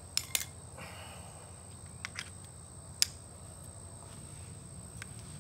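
A few short, sharp clicks and knocks from pressure-washer attachments and quick-connect fittings being handled and snapped together, over a steady high-pitched tone.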